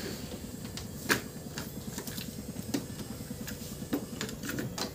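Mechanical clicks from a Turbo Metallic SX-50 double cassette player as its piano keys are pressed and a cassette is handled and loaded into the deck 1 door: a handful of separate sharp plastic clicks over a low background hum.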